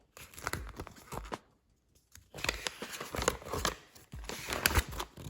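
Paper and packaging rustling and crinkling as they are handled, in two spells of crackling with a short pause about two seconds in.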